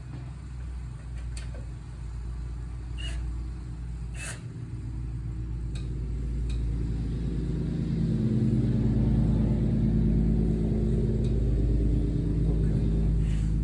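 A steady low engine-like hum that grows louder over the first half and then holds, with a few light knocks and clicks early on.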